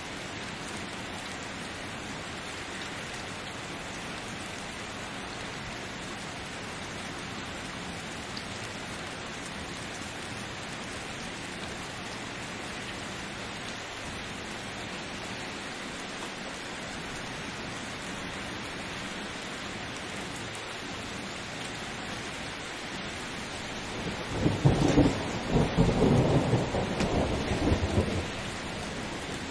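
Steady rain throughout, with a loud rolling clap of thunder near the end lasting about four seconds.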